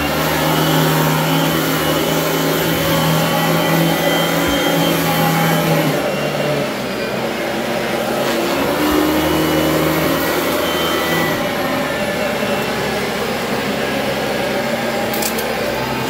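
Vacuum cleaner running steadily on carpet, its motor tone shifting slightly a couple of times as it is worked over the pile.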